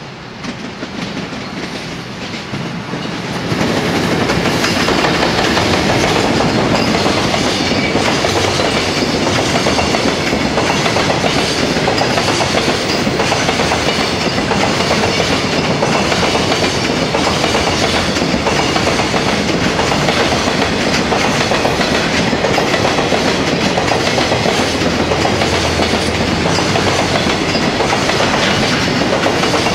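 A JR Freight EF210 electric locomotive comes past, followed by its long train of container wagons rolling by. The sound grows over the first few seconds as the locomotive draws close, then stays loud and steady as the wagons pass.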